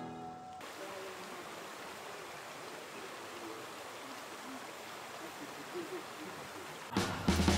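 A stream flowing with a steady, even rush of water, with a few faint voices of passers-by. Background music fades out at the start and comes back in near the end.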